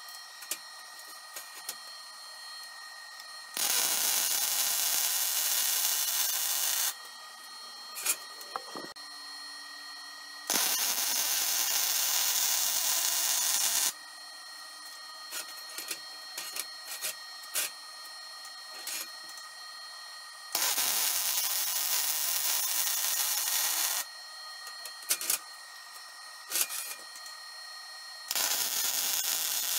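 Wire-feed (MIG) welder arc crackling and hissing as beads are laid on steel: four runs of about three and a half seconds each, the last starting near the end. Between them are pauses with light clicks and taps as the gun and work are repositioned.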